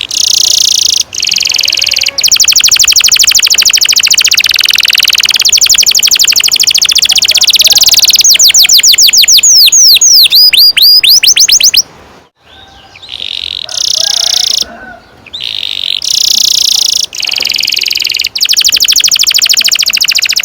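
Domestic canary singing long, very fast rolling trills of high notes. In the middle comes a run of separate swooping whistled notes, then a short pause, and the song resumes with shorter phrases and another long roll near the end.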